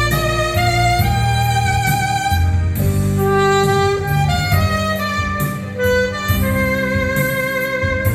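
Saxophone playing a slow melody of held notes with vibrato over an accompaniment with a steady bass line.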